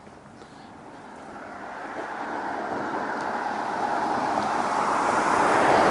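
A road vehicle approaching, its tyre and engine noise growing steadily louder until it is close.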